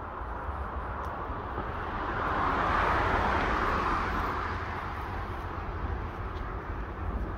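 An unseen vehicle passing by: a broad whoosh that swells to its loudest about three seconds in and then fades, over a steady low rumble of wind on the microphone.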